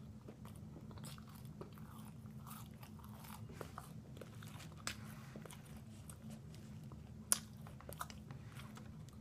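Quiet close-up chewing and crunching of fried food: scattered crisp clicks and smacks, with one sharper crunch about seven seconds in. A steady low hum runs underneath.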